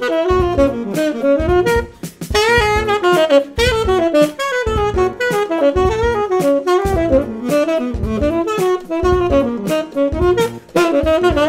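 Tenor saxophone playing a fast improvised jazz line, the notes changing rapidly with short breaks for breath about two seconds in and near the end.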